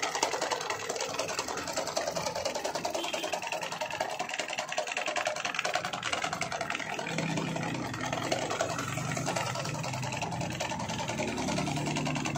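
Electric stand fan running with a two-blade propeller while oscillating side to side, making a fast, even rattle with a low hum that grows in the second half. The two-blade propeller is out of balance, so the fan wobbles and shakes as it runs.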